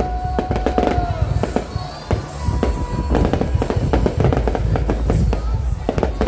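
Fireworks going off in a dense, continuous run of sharp bangs and crackles over a deep rumble, with music playing underneath.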